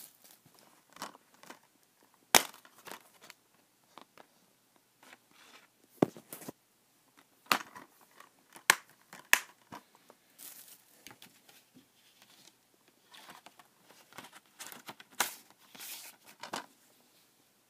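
Handling of a Blu-ray case and its plastic wrapping: tearing and crinkling of plastic film, with several sharp plastic clicks and snaps.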